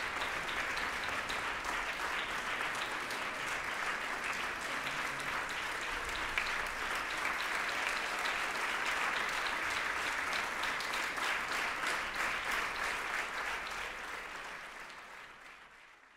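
An audience applauding steadily, many hands clapping at once, fading away near the end.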